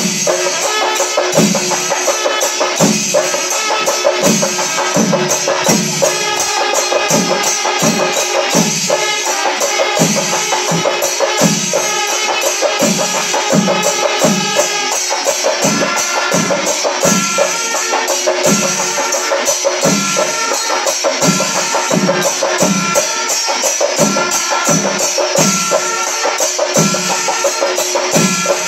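Kerala chenda melam: a temple percussion ensemble of chenda drums and ilathalam hand cymbals playing loud and continuous, with held wind-instrument notes over it. Low drum strokes fall in a steady pulse roughly every two-thirds of a second under a constant cymbal wash.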